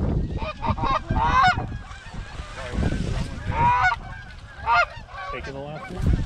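Canada geese honking in short bursts: a run of calls about a second in, more in the middle and near the end. Wind buffets the microphone at the start.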